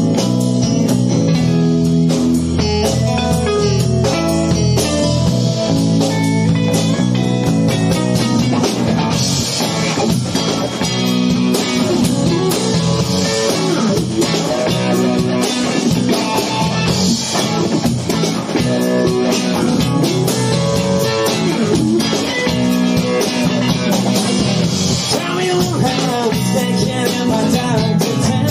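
Live band playing together: electric guitar, bass guitar and drum kit with cymbals, loud and continuous.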